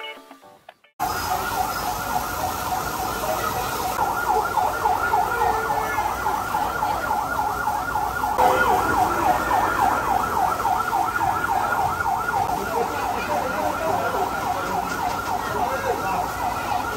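Emergency-vehicle siren sounding a fast rising-and-falling yelp over a background of crowd noise, starting suddenly about a second in.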